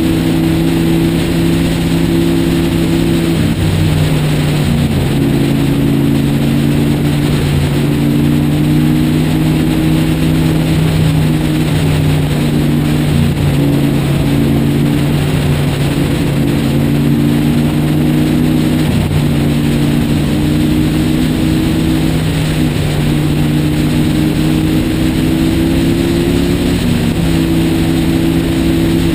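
Motorcycle engine running at a steady highway cruise, its tone drifting slightly up and down a few times, under continuous wind rush over the microphone.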